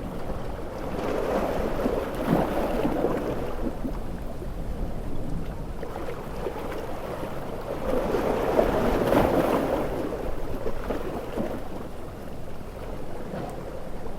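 Large ocean waves surging and breaking over a steady wash of surf. One swell builds about a second in and a bigger one about eight seconds in, each dying back down.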